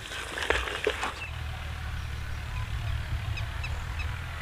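Wooden spoon stirring moringa root pieces frying in mustard oil in a clay pot, with a few sharp knocks and scrapes in the first second. After that, faint bird chirps over a low steady hum.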